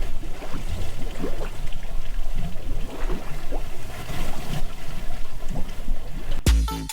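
A steady rushing roar of wind blowing across the microphone. About half a second before the end, electronic music with a heavy beat comes in.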